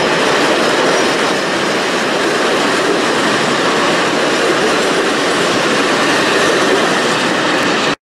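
Freight train of tank wagons rolling past at speed: a loud, steady rush and rumble of steel wheels on the rails. It cuts off suddenly near the end.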